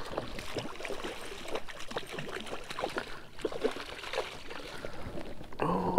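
Water splashing and trickling with many short irregular splashes and clicks: a hooked striped bass thrashing at the surface beside a kayak as it is played in.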